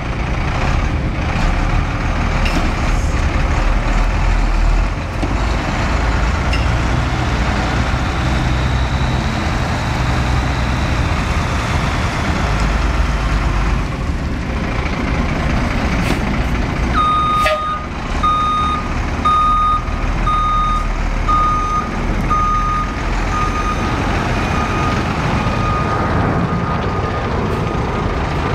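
1992 Ford L8000 box truck's engine running steadily as the truck drives and maneuvers. About two-thirds of the way in, its reversing alarm starts beeping about once a second as the truck backs up.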